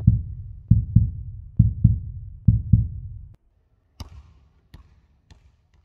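Heartbeat sound effect: paired low thumps repeating a little under once a second, fading out after about three seconds. Then a ball bounces on a wooden sports-hall floor, four sharp bounces coming quicker and fainter as it settles.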